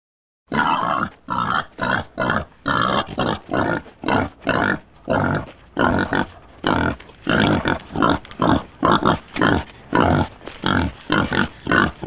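Wild boar grunting in a long, unbroken series of short calls, about two a second, starting about half a second in.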